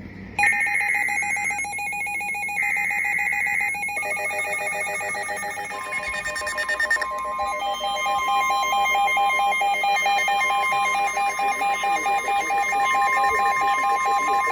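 Emergency Alert System broadcast: two roughly one-second bursts of the SAME header's screeching digital data tones, then, about four seconds in, the steady two-tone EAS attention signal, with pulsing alarm tones layered over it.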